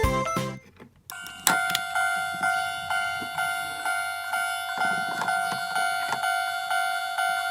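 Plarail toy railroad crossing (McDonald's Happy Meal crossing) sounding its electronic warning bell. It rings a steady, rapid ding-ding at about three strikes a second, starting about a second in as the music cuts off.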